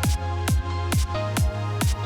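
Electronic outro music with a steady kick drum about twice a second over a held bass.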